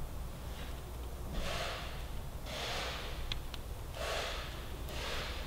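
A man breathing heavily through his nose close to the microphone, four breaths about a second apart, with two small clicks midway.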